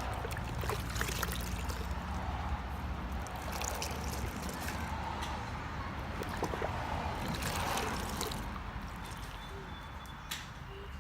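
Water sloshing and trickling as a dirt bike part is washed by hand in water, with small knocks and splashes.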